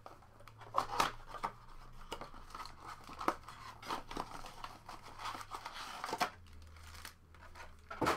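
Foil trading-card packs and their cardboard blaster box being handled: irregular crinkling and rustling of the pack wrappers, with sharp taps and crackles as the packs are pulled out and stacked.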